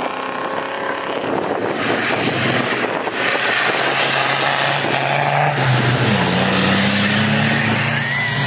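Off-road 4x4 racer's engine revving hard as it powers through deep mud, with a rushing noise of spinning tyres and flung mud. The engine note dips about six seconds in, then holds.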